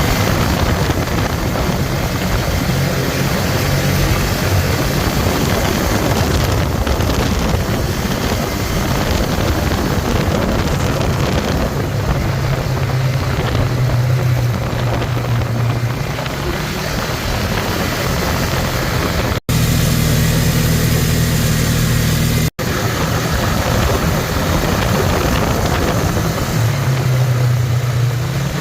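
ATV engine running steadily. The sound drops out abruptly twice about two-thirds of the way through, at cuts in the recording.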